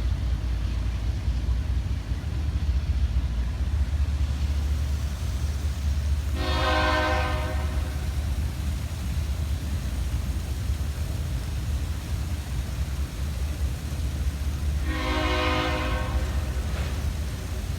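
Slow-moving freight train rumbling past steadily, its locomotive horn sounding twice: one blast about six seconds in and another about fifteen seconds in, each about a second and a half long.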